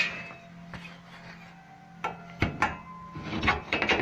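A few sharp knocks and clatters, such as parts being handled or tapped, two or three about two seconds in and a quicker cluster near the end.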